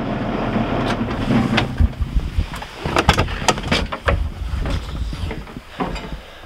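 Knocks, clicks and thumps of someone climbing out of a tractor cab with the camera in hand: cab door and steps banging, over a low steady rumble.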